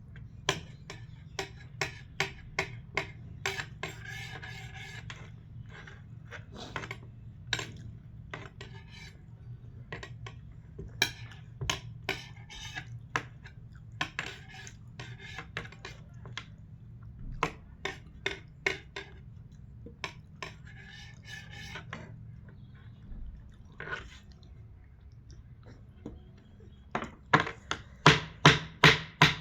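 Eating at the table: clinks and scrapes of utensils on a plate, with chewing and soft rubbing. A steady low hum runs underneath. Near the end comes a quick run of louder taps.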